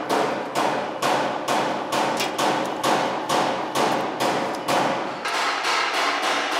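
A steady, even run of sharp percussive hits, about three a second, over a sustained pitched ring.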